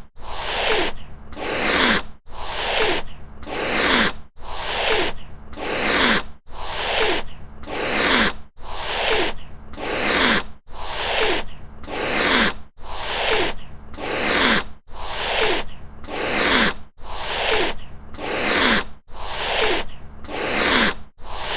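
Angry cat hissing over and over, about one hiss a second. Each hiss starts sharply and fades over about a second. The same two-hiss clip is looped, with an abrupt cut every two seconds or so.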